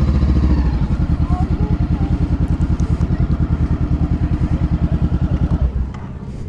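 Motorcycle engine idling with a steady, even pulse, then switched off almost six seconds in.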